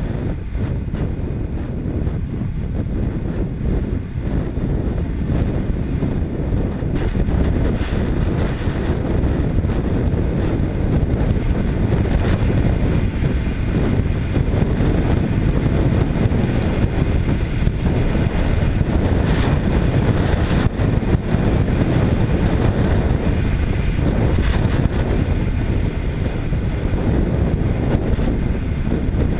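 Steady rush of wind on a motorcycle-mounted camera's microphone, mixed with the motorcycle's engine and tyre noise at an even cruising speed.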